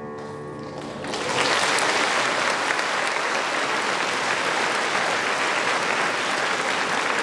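The last held chord of a choir and string ensemble fades out, and about a second in an audience breaks into steady applause.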